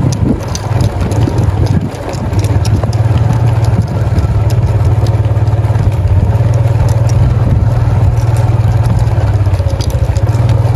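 Small Yamaha motorcycle engine running at low speed over a gravel riverbed, with stones clicking and rattling under the tyres. The engine dips briefly near the start, then runs steady.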